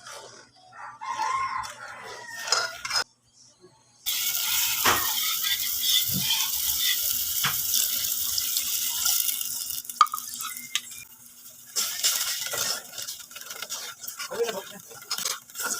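Kitchen food preparation: a steady hiss lasting about six seconds, then scattered clinks and scraping of utensils against dishes and pans.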